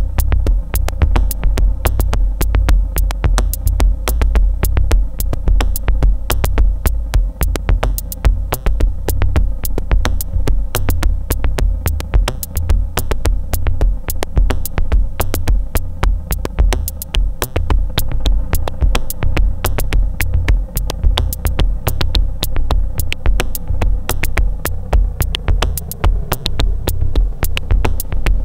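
Dark minimal electronic music played live on a Eurorack modular synthesizer and a Tempest drum machine. A heavy, deep bass runs under a fast, steady stream of sharp ticks and a held mid tone.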